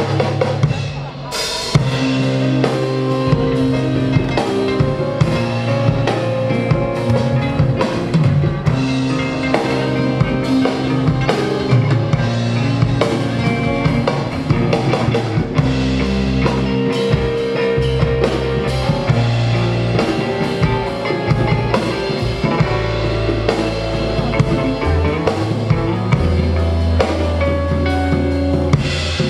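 Live rock band playing an instrumental passage, drum kit and bass to the fore with guitar, after a brief break about a second in.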